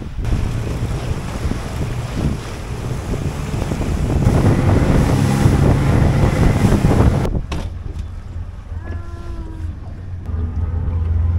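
Speedboat running fast across open sea: the engine's low hum under rushing wind and water noise. After a cut about seven seconds in, the engine runs slower with a steady low hum and much less wind and water noise.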